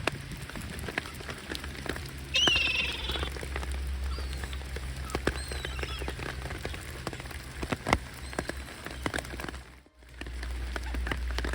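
Steady rain pattering, with many sharp ticks of drops landing close by. A single louder bird call about two seconds in, and a few short faint chirps later.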